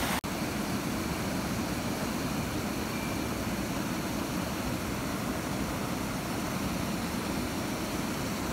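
Steady rush of river water spilling over a small weir and running through white-water rapids, an even noise that breaks off for an instant just after the start.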